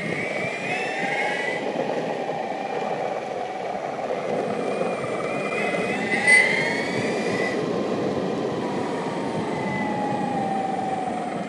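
Dual-motor electric longboard riding over asphalt: the brushless motors whine, their pitch rising and falling with speed, over a steady rumble of the wheels rolling on the tarmac. A short sharp knock about six seconds in.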